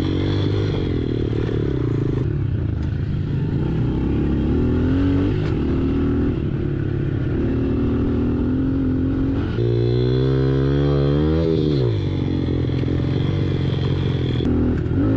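Small 110cc single-cylinder pit bike engine running while riding off-road, its pitch rising and falling with the throttle. About ten seconds in it revs up hard, then falls away sharply about two seconds later.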